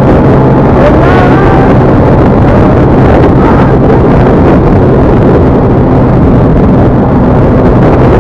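Steady, very loud running noise of a moving road vehicle, with a constant low engine hum under a dense wash of road and wind noise.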